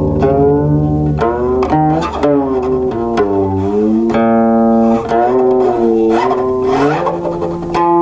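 Silk-stringed guqin played solo: plucked notes whose pitch slides and wavers as the left hand glides along the strings, with a new note struck about every second.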